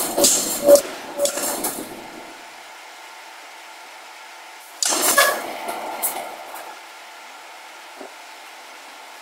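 Forging hammer dies striking a red-hot steel bar in a swage: a quick run of ringing metal clanks in the first two seconds, a steady low hum, then another sudden burst of clanks about five seconds in that dies away.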